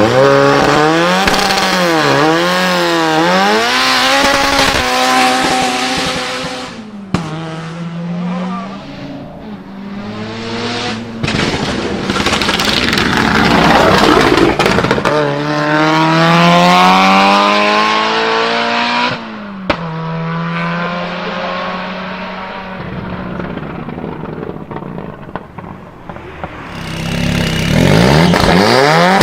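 Turbocharged Ford Sierra Cosworth's four-cylinder engine revving: repeated quick blips of the throttle, then a hard acceleration with the pitch climbing, easing off in between. A few sharp bangs from the anti-lag system crack out along the way.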